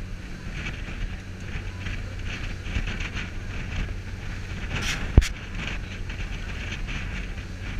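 A cruise boat's engine running at a steady hum under way, with a rush of wind and water. About five seconds in there is one sharp click.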